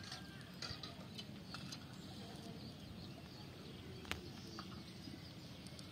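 Quiet outdoor ambience with a steady low background, a few faint ticks and one sharp click about four seconds in.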